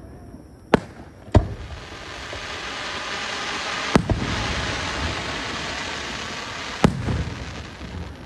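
Fireworks going off: four sharp bangs, two close together near the start, one about four seconds in and one near seven seconds, over a hiss that swells and fades between them.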